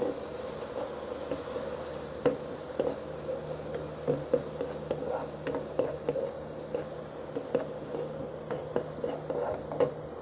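Chopped tomato, onion and garlic sizzling in oil in a nonstick pan while a plastic spatula stirs them, scraping and tapping the pan at irregular intervals. A steady low hum runs underneath.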